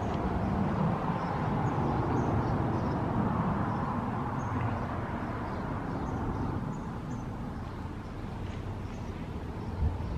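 Outdoor background: a steady low rumble that eases a little in the second half, with faint, scattered high bird chirps.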